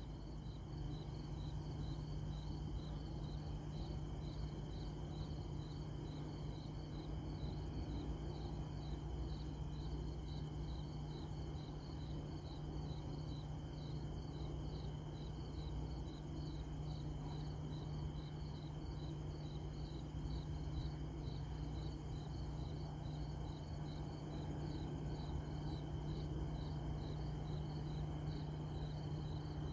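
Crickets chirping in a steady, even rhythm of repeated pulses, over a constant low hum.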